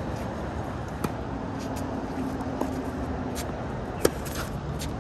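Tennis ball struck by racket strings: a fainter pop about a second in, then a sharp, loud forehand hit close by about four seconds in, over a steady hum of road traffic.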